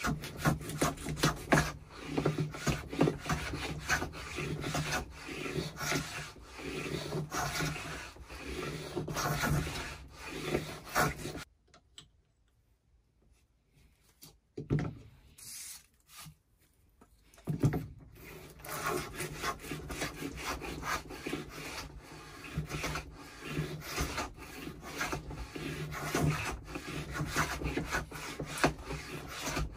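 Record No 50 combination plane cutting a groove along a board, stroke after stroke of the iron shaving the wood. The strokes stop for a few seconds about a third of the way in, then start again.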